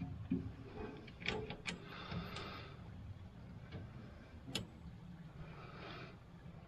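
A few light metallic clicks and clinks as steering-column shifter parts (the collar and its bolt) are fitted by hand, the sharpest click about four and a half seconds in, over a faint low rumble.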